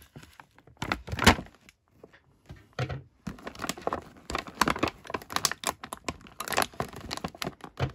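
Stiff plastic doll packaging crackling and snapping as it is handled and cut open, with one sharp loud crack about a second in and dense irregular crackling through the second half.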